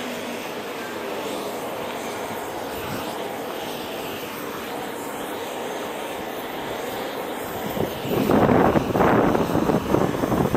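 Wind rushing steadily, then from about eight seconds in loud, irregular gusts buffeting the microphone.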